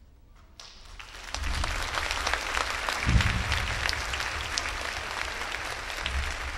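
Audience applauding: clapping starts about half a second in and builds to full, steady applause within a second. A low thump sounds about three seconds in.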